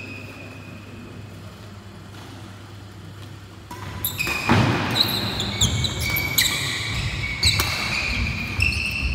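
Badminton rally on a wooden indoor court: rackets strike the shuttlecock about once a second, while the players' shoes squeak and thud on the floor. The rally starts about four seconds in, after a quieter pause.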